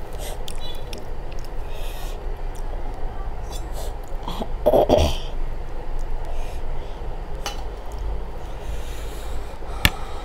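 Close-up eating sounds: a hand mixing rice on a plate and mouth noises over a steady low hum. A short, loud snort comes about five seconds in, and a steel bowl lid gives one sharp clink just before the end.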